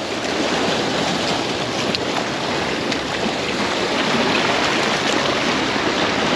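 Sea surf washing against shore rocks, a steady rush of water noise.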